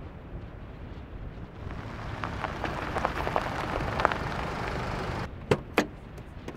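Footsteps crunching over a snowy driveway, with wind rumbling on the microphone, then two sharp clicks near the end as a car door is opened.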